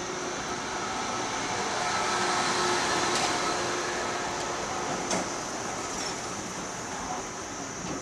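Toshiba electric multiple unit pulling out of a station: a steady rumble of wheels on rail with a humming whine from the traction motors, which swells toward the middle and then eases. Two sharp clacks come about three and five seconds in.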